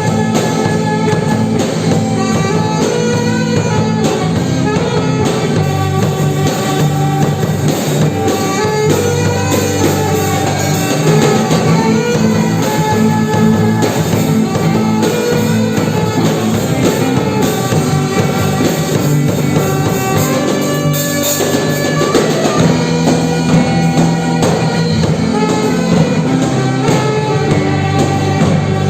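A band playing: drum kit, guitar and bass in a steady groove.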